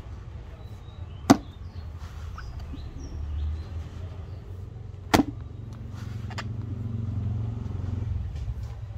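Plumb axe biting into a wooden stump: two sharp strikes about four seconds apart, over a steady low rumble.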